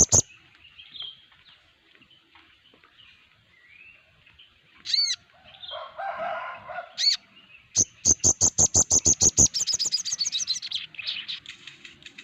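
Sogon birds calling: single sharp chirps about five and seven seconds in, then from about eight seconds a fast run of loud, evenly spaced chirps that quickens into a trill. This is a flock recording played as a lure to set caged sogon singing.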